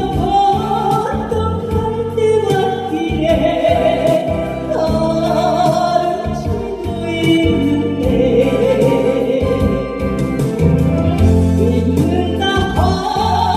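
A woman singing a Korean trot ballad with vibrato over a backing track with a steady beat.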